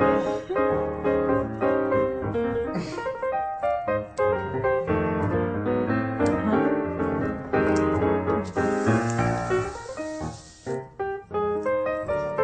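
Background piano music playing quick, light runs of notes. A few seconds of hiss sit over it in the second half.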